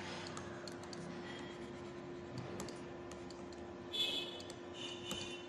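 Faint scattered clicks, with two short scratchy strokes near the end, over a steady low hum: small sounds of desk work such as writing or clicking.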